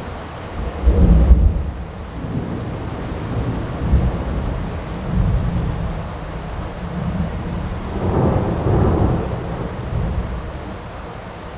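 Thunder rumbling and rolling, loudest about a second in, with another long swell near the end, over a steady hiss.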